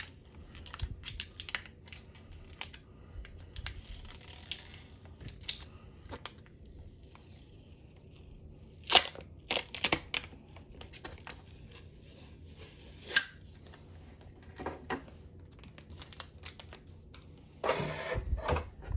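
Handling noises from a smart dimmer switch and its packaging: scattered light clicks and taps of plastic, with paper and plastic rustling, a few sharper clicks in the middle, and a burst of rustling near the end.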